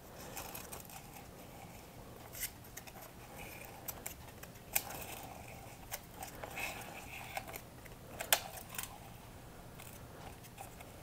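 Tecumseh snowblower recoil starter being wound by hand: the rope pulley is turned several times inside its metal housing to tension the recoil spring. It gives faint scattered clicks and rattles, a few sharper ones about two and a half, five and eight seconds in.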